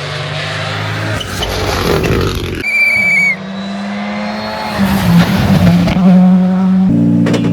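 Rally car engines running loud, growing louder, with the engine note changing abruptly about a third of the way in and again near the end.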